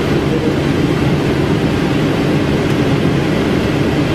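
Steady rushing noise on the flight deck of a Boeing 777 on final approach: airflow over the airframe and the engines, with a low hum beneath.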